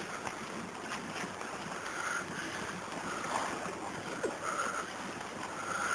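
Wind and sea surf on an open shore, a steady rushing noise, with wind buffeting the microphone.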